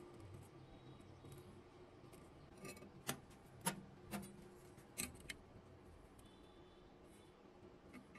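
A few light metallic clicks and taps, about four or five spread over two seconds midway, from metal pieces being handled on a metal work surface; otherwise faint room hiss.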